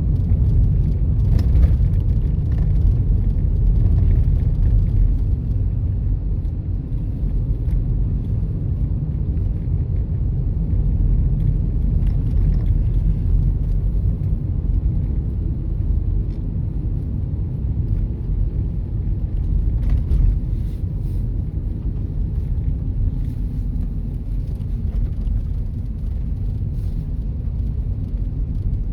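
A car being driven: a steady low rumble of road and engine noise, with a couple of faint knocks along the way.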